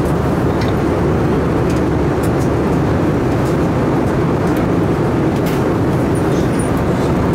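Steady, loud drone of an airplane's engines and airflow, heard from inside the cabin.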